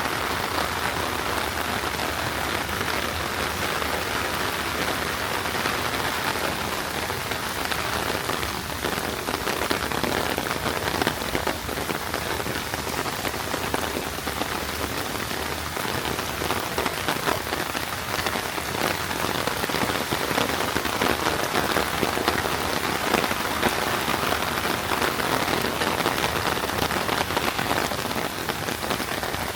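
Heavy rain falling steadily, a dense hiss of many drops striking close by.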